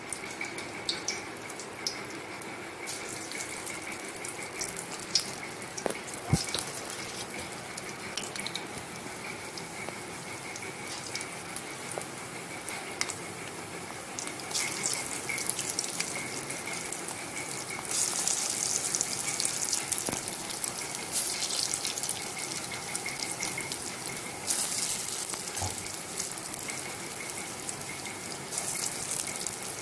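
Masoor dal fritters sizzling and crackling as they deep-fry in hot oil in an iron wok. The sizzle grows louder in stretches as more lumps of batter are dropped into the oil.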